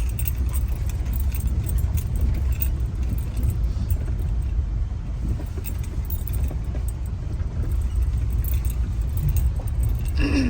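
Inside a moving car: steady low road and engine rumble, with light jingling and rattling clicks throughout.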